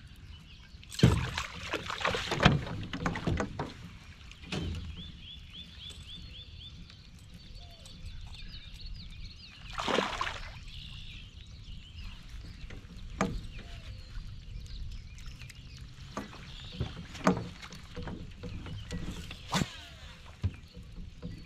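Water splashing at the side of a canoe as a hooked fish thrashes at the surface and is landed, with the loudest splashes about a second in and about ten seconds in. Sharp knocks and bumps of gear against the boat follow now and then.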